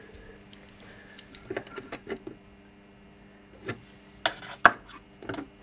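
Scattered small metallic clicks and taps as a caliper and cut aluminium pieces are handled on an MDF wasteboard, with one sharper click near the end, over a faint steady hum.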